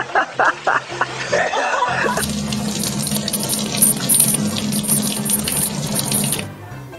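Brief laughter, then a water tap running steadily into a sink for about four seconds, cutting off abruptly near the end.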